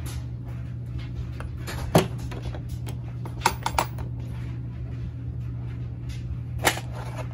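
Sharp plastic clicks and clacks from the latches and clear lid of a Milwaukee 10-compartment small parts organizer as it is unsnapped and opened: a loud click about two seconds in, a quick pair about halfway, and another near the end.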